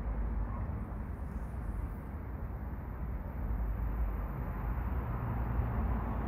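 Potter's wheel spinning with a steady low hum and rumble while wet clay is coned up and pressed down on it, the centering stage of throwing.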